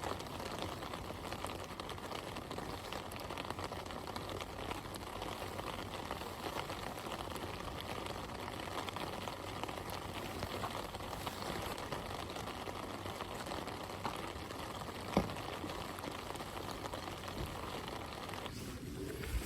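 Steady rain falling, an even patter and hiss, with one short sharp knock about fifteen seconds in.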